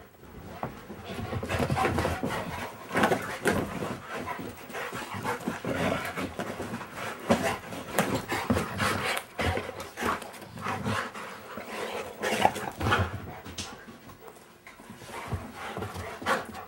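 A Rottweiler panting hard while it plays, with frequent short knocks and scuffs of paws and toys on the floor.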